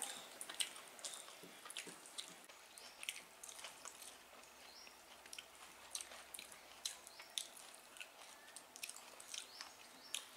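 Faint, irregular small clicks and wet squishes of people eating rice and curry with their fingers from steel plates.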